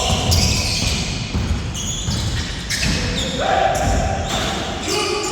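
A basketball being dribbled on a court, with repeated bounces, and players' voices calling out.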